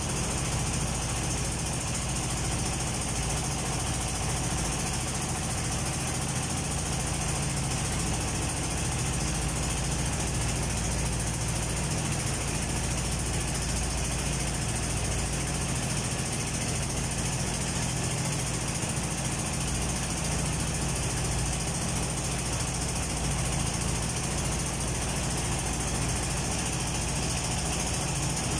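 A boat's engine running steadily under way on a wide river, with a steady hiss over it.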